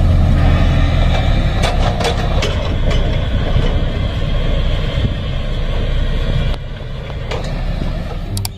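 A motor vehicle running loudly, with an engine hum in the first second, a steady rattling noise and scattered knocks. It drops somewhat in level about six and a half seconds in.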